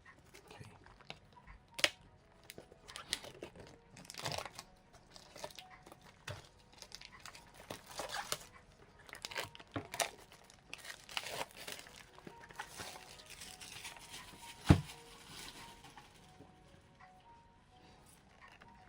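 Packaging crinkling and tearing as a booster display box is unwrapped by hand, with scattered light taps and one sharp knock late on.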